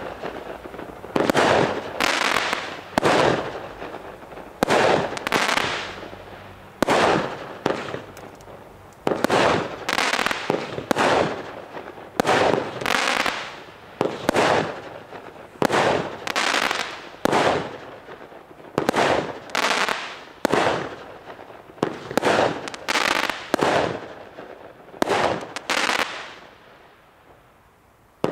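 Fireworks cake from the Vulcan Soul Crushers assortment firing shot after shot: sharp aerial bursts about once a second, each followed by a short fading tail. The shots stop shortly before the end.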